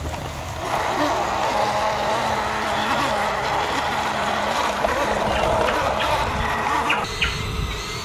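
Toy RC dump truck's small electric motor and gearbox whirring steadily as it drives through grass, with the pitch wavering slightly; it cuts off abruptly about a second before the end.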